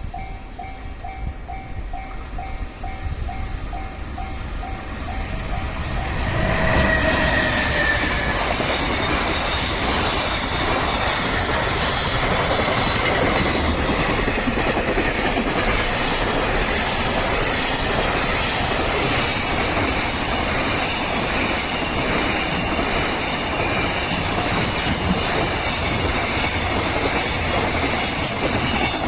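Level-crossing warning bell ringing in a steady beat, then a freight train hauled by an EF210 electric locomotive arrives about six seconds in and passes through the crossing, its wagons rumbling and clacking over the rails and drowning out the bell.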